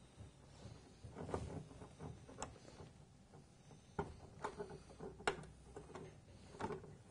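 Scattered light clicks and knocks of a car dynamo control box being handled against its metal mounting panel, with one sharper click a little past the middle.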